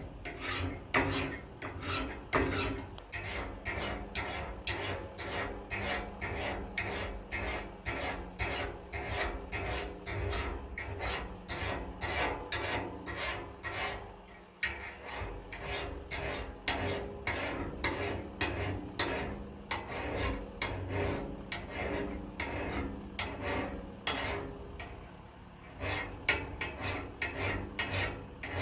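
A hand metal file rasping along the edge of a double-bit axe head in even strokes, about two a second, with short pauses near the middle and a few seconds before the end.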